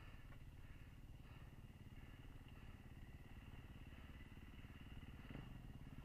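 Dirt bike engine idling steadily at a low level, a fast even low pulse with no revving.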